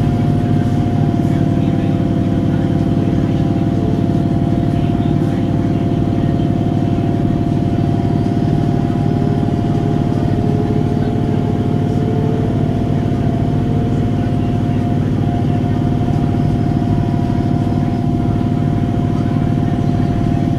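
Electric local train's motor coach running at steady speed: traction motors give a steady whine over a heavy rumble.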